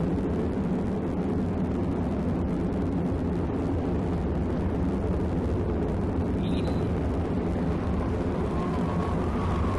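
Steady, deep rumbling roar of a tornado sound effect, even in level throughout.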